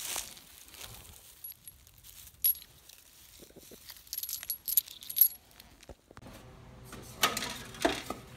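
Spent brass shell casings picked up from the grass and clinking together in a hand: a scatter of small, sharp, ringing metallic clinks. After a cut about six seconds in, a low steady hum and two knocks of bottles being handled on a shelf.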